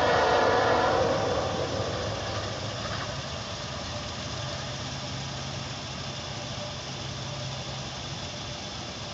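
Engine and rail noise of a train fades away over the first two seconds or so. A steady, low engine hum then carries on, like an idling vehicle.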